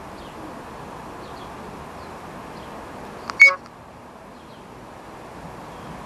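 Garden ambience: a steady background hiss with faint, distant small birds chirping now and then. About three and a half seconds in comes one loud, short, sharp sound, a click and then a brief pitched note.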